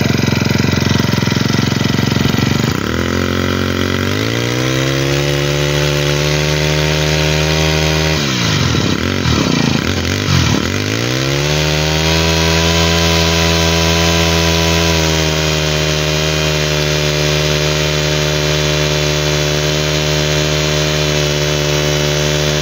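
Honda GX25 25 cc four-stroke OHC brushcutter engine running on its own. It settles from a faster speed to a lower steady speed about three seconds in, and its revs dip and recover twice around the middle. It is a solid, smooth-running engine, described as clear and "êm ru" (silky smooth).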